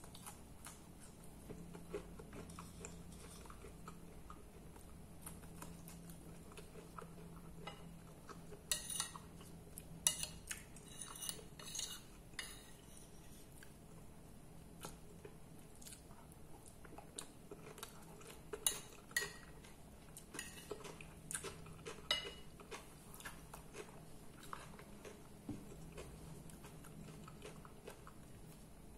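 Metal fork clinking and scraping on a ceramic plate while salad is picked up, in a cluster of sharp clicks about nine seconds in and another around nineteen to twenty-two seconds, with quiet chewing between.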